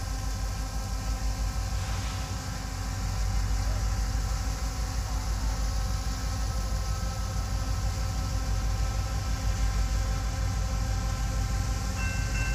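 Low rumble of a pair of EMD SD90/43MAC diesel locomotives approaching with a loaded coal train, growing louder about three seconds in. Near the end the grade-crossing bell starts ringing as the crossing signals activate.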